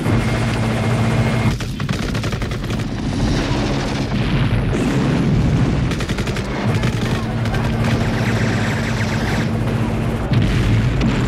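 War-film battle sound: bursts of machine-gun fire and explosions over the steady low hum of a helicopter.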